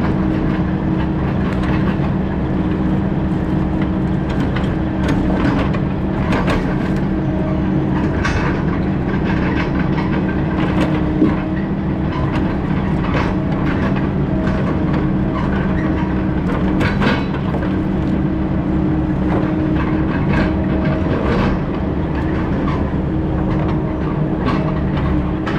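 Heavy diesel logging machine running steadily under load, with frequent irregular metallic clanks and knocks over the engine's drone.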